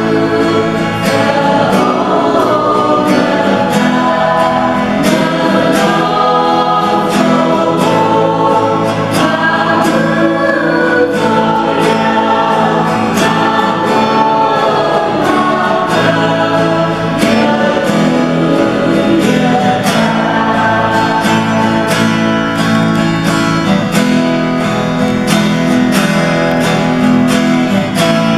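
Group of voices singing a gospel song together over instrumental accompaniment, with a steady beat.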